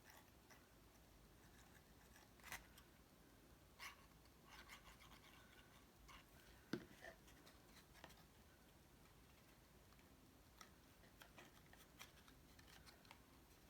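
Near silence with scattered faint taps and rustles of cardstock pieces being handled and pressed together, the loudest a single sharp tap about halfway through.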